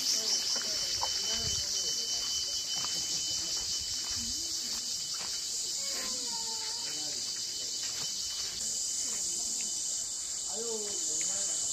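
Steady, high-pitched chorus of insects, with faint voices in the background.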